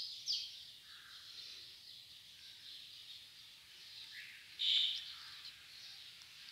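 Chopped onions and ginger-garlic paste sizzling in hot oil in an aluminium wok: a steady frying hiss, with short louder spurts just after the start and again near five seconds.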